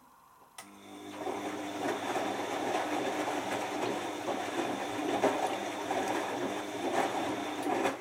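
Bosch Maxx 6 front-loading washing machine tumbling its load: after a click about half a second in, the drum motor starts with a whine and the wet clothes and water slosh round in the turning drum, then the motor stops abruptly near the end.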